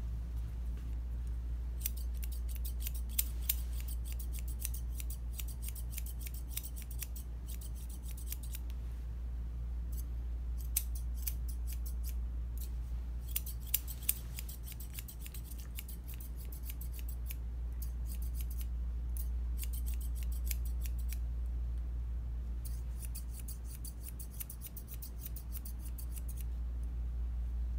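Grooming shears snipping through a Bichon puppy's head fur in quick runs of crisp snips, with short pauses between runs, over a steady low hum.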